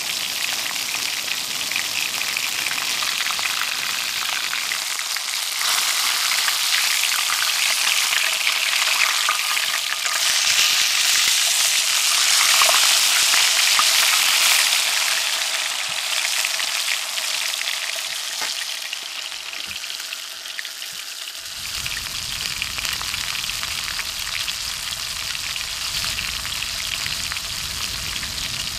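Fish fillets frying in hot oil in a cast iron pan over a campfire: a steady, crackling sizzle that swells around the middle as the fillets are turned with tongs. A low rumble joins it about two-thirds of the way through.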